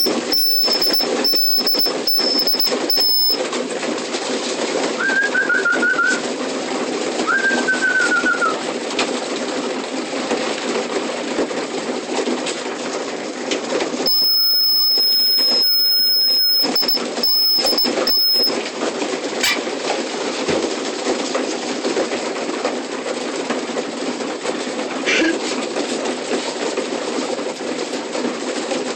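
A flock of young racing pigeons cooing together, a dense steady cooing throughout. Two short falling chirps sound about five and seven seconds in, and a thin high steady tone comes and goes twice.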